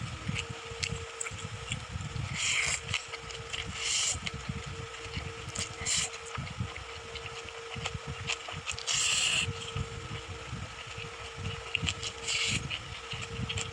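Close-miked mukbang eating sounds: chewing and mouth clicks, with about five short, hissy bursts of slurping or crunching spread through, over a steady low hum.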